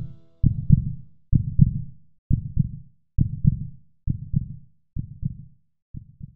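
Heartbeat sound effect: deep double thumps, lub-dub, about once a second, growing fainter toward the end.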